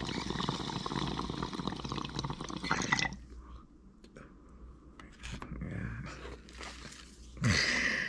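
Water bubbling in a small glass bong as smoke is drawn through it, for about three seconds, followed by quieter breathy exhaling.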